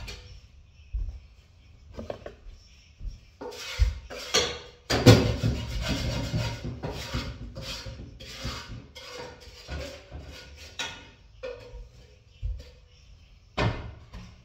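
Kitchen clatter of dishes and utensils being handled: a run of clinks and knocks, busiest in the middle.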